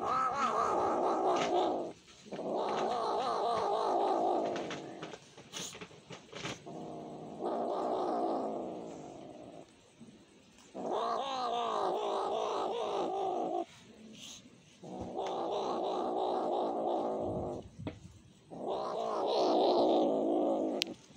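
Kitten growl-yowling with a mouthful of meat as it chews. About six long, wavering calls of two to three seconds each, with short pauses between.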